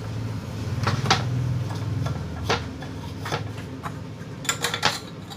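Clicks and knocks of electric fan parts being handled during reassembly, over a low hum that fades out about three seconds in.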